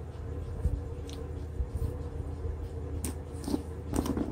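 Small electronics being handled on a tabletop as a USB cable is unplugged and the parts set down: a few light clicks and knocks about three seconds in, over a steady low hum.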